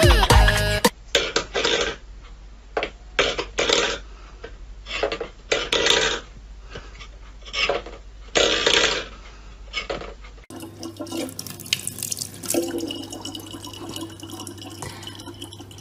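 A run of short, irregular noisy bursts, then, about ten seconds in, water from a tap running in a thin, steady stream into a plastic bottle.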